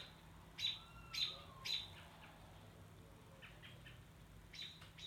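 Songbird chirps: three short, sharp chirps in the first two seconds, fainter ones in the middle and another near the end. A faint falling whistle sounds behind the first chirps.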